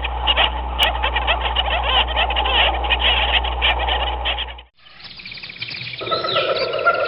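A dense chorus of rapid chirping animal calls over a low steady hum, cutting off suddenly about two-thirds of the way through. About a second later, sustained music tones begin.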